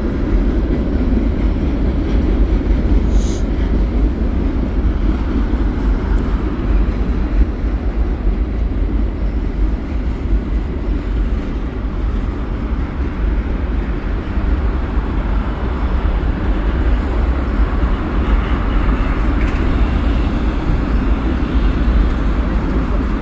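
Freight cars of a CN freight train rolling past over a railway bridge: a steady rumble of steel wheels on the rails.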